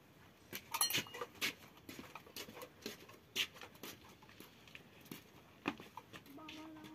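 Jars and a metal pot clinking and knocking in a plastic crate as it is carried, with footsteps on stone: an irregular scatter of sharp clicks, busiest about a second in. Near the end a brief low steady tone sounds.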